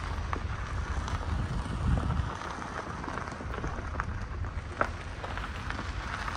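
Car driving along an unpaved dirt road: a steady low rumble of engine and tyres with a faint crackle of grit under the wheels, and a single sharper tick about five seconds in.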